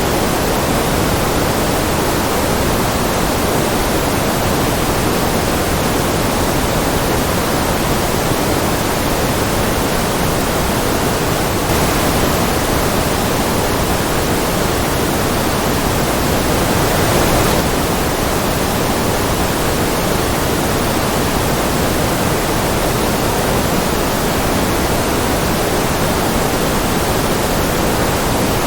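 Steady generated white-noise track: an even, unbroken hiss, fuller in the low-middle range than in the highs.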